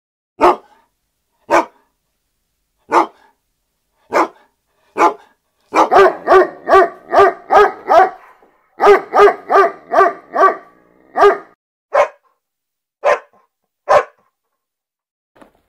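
Dog barking: single barks about a second apart, then two quick runs of barks in the middle, then a few more single barks.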